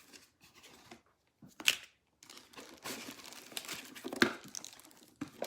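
Packaging crinkling and rustling as an item is unwrapped by hand, with a sharp click about one and a half seconds in and another around four seconds in.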